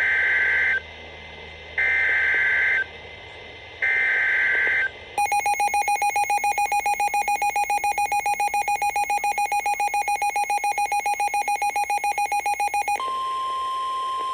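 Emergency Alert System SAME header: three one-second bursts of warbling digital data tones about two seconds apart. Then a harsh, buzzy alert tone pulses about five times a second for about eight seconds. Near the end it switches to the steady NOAA Weather Radio warning alarm tone.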